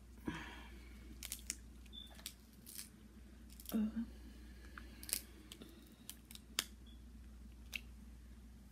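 Shrimp and crab-leg shells being cracked and peeled by hand: scattered sharp clicks and crackles, with a brief low hum about four seconds in.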